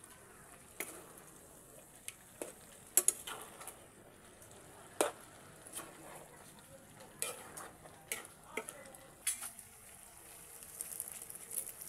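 Chopped meat frying with a steady faint sizzle in a large wok while a spatula stirs it, giving sharp scrapes and knocks against the pan at irregular intervals of a second or two.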